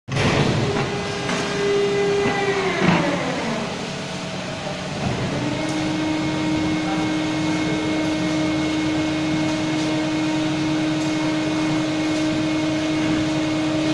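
Hitech servo injection moulding machine running through a bucket-moulding cycle: a steady whine over a machine hum that falls in pitch and fades about three seconds in, then a lower steady whine that comes in about five seconds in and holds.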